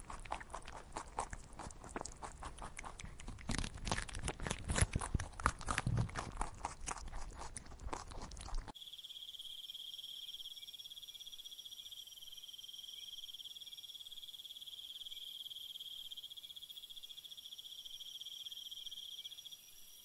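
Young rabbits chewing leafy greens: a dense run of small crisp crunches and clicks. About nine seconds in it cuts off abruptly, leaving a faint, steady high-pitched drone.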